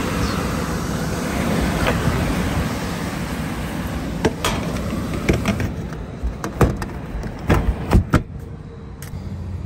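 Newly installed Trane X13 blower motor driving the blower wheel of a rooftop HVAC unit, a steady rush of moving air. From about four seconds in come a series of sharp knocks of handling, and the air noise drops after about six seconds.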